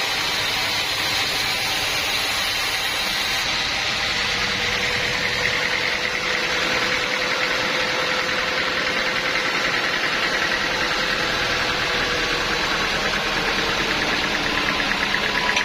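Portable sawmill running steadily, its engine and saw at an even level, with a faint whine that rises a little in pitch.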